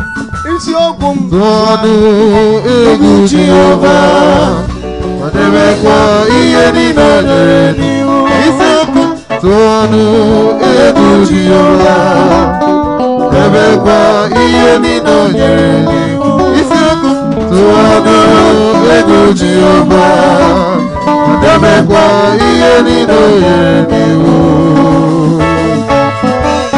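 Live gospel praise band music: Yamaha keyboard, bass guitar and drum kit playing, with voices singing over them.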